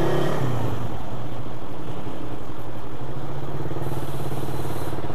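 Motorcycle engine running at low speed as the bike rolls slowly, its pitch dipping slightly about half a second in, then holding steady, with a brief hiss near the end.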